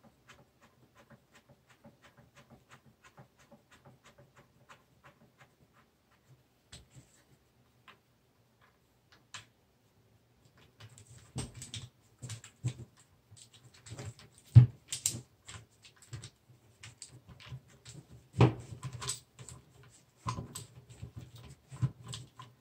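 Light clicking of small metal tools on a rifle, then from about halfway louder irregular knocks and clatter as the Browning AB3 rifle and a hex key are handled on a bench while the stock screws are loosened.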